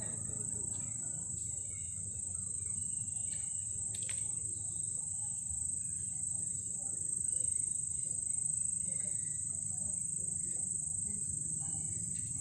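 Crickets chirring in one steady, high-pitched chorus, with a low rumble underneath and a single click about four seconds in.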